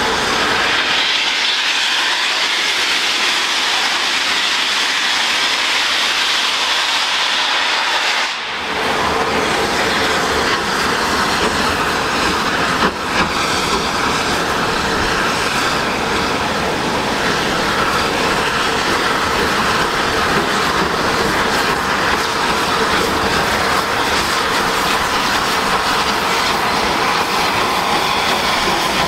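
Southern Railway Battle of Britain class 4-6-2 steam locomotive blowing off a steady hiss of steam as it pulls slowly along. From about eight seconds in, a fuller, deeper rail noise of the engine and its carriages joins the hiss.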